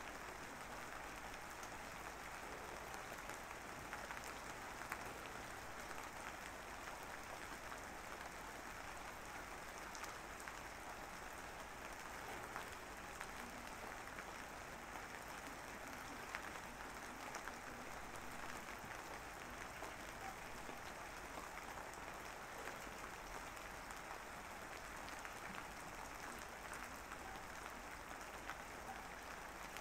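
Faint, steady rain-like hiss with scattered tiny ticks, unchanging throughout.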